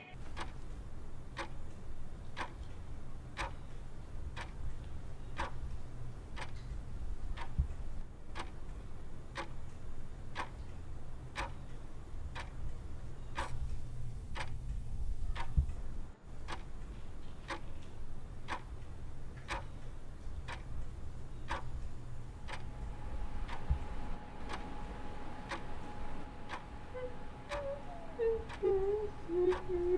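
Clock ticking steadily, about three ticks every two seconds, over a low steady hum. Near the end a thin steady tone and faint wavering, wail-like sounds come in.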